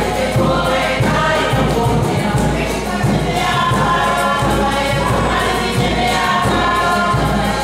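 Group of voices singing a Cook Islands song together, over a large drum beating a steady rhythm.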